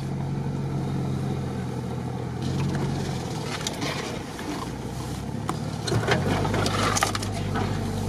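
Jeep SUV heard from inside the cabin, driving slowly over a rough grassy track, its engine a steady low drone. From about two and a half seconds in come rustling, knocks and rattles as it bumps along past young trees. The engine note shifts about six seconds in.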